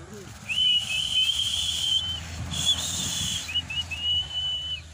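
A person whistling a long, level, high note, broken into three stretches with a few short chirps before the last. A rushing hiss runs behind the first half.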